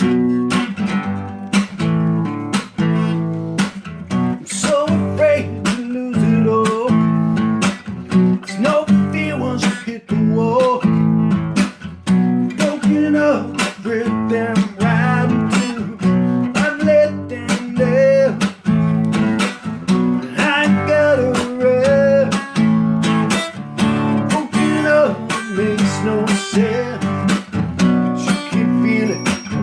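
Acoustic guitar strummed in a steady rhythm, with a melody line on top. This is the instrumental intro of an unplugged song.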